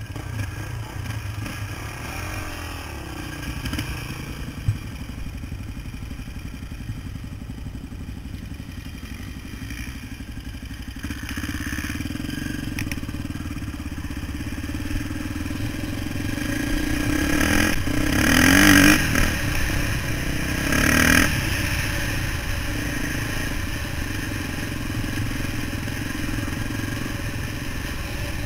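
Dirt bike engine running, first at a low, even level while the bike stands, then louder as it rides over rough grassy ground. About two-thirds of the way in there are two hard bursts of throttle, the first with a rising rev.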